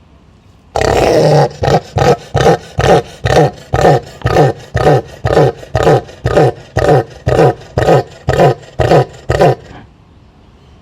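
A large animal calling aggressively: one long harsh roar, then a steady series of short roaring pulses, about two a second, for about nine seconds.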